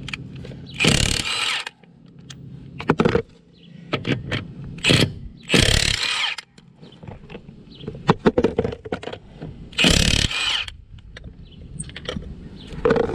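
Milwaukee M18 Fuel cordless impact wrench running on a car's wheel lug nuts in bursts: three longer runs of about a second each, with several short blips in between.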